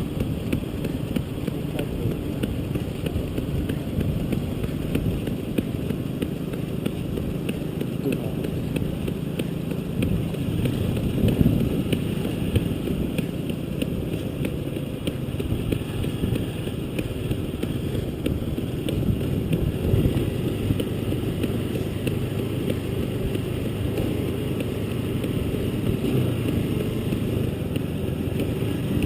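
A motor vehicle's engine running steadily, with a low, even rumble.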